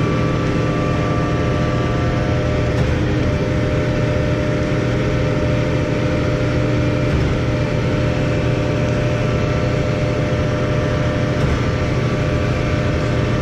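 Heavy engine of concrete pumping equipment running steadily at a constant speed, a deep even drone with no change in pitch or loudness.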